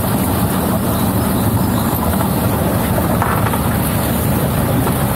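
Boat motor running steadily while under way, a constant low drone.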